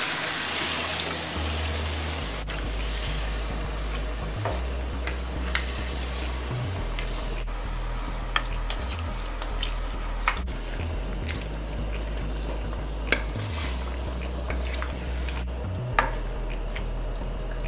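Chicken and green papaya curry sizzling in a nonstick wok as coconut milk is poured in, then stirred with a spatula that knocks lightly against the pan every few seconds.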